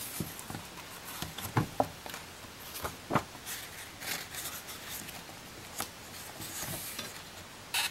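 Pages of a hardcover picture book being turned and the book handled: paper rustling with scattered light taps and knocks.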